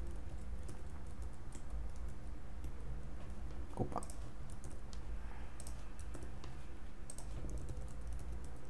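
Typing on a computer keyboard: scattered key presses over a low steady hum.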